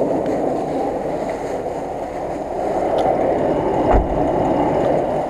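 Off-road 4x4 crawling over a fallen birch log, heard as a steady, muffled vehicle noise from a camera mounted under the body. A heavy low thump comes about four seconds in as the running gear knocks on the log.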